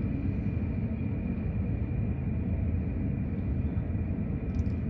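Jet airliner noise on the airport apron, heard through terminal glass: a steady low rumble with a faint, steady high whine above it.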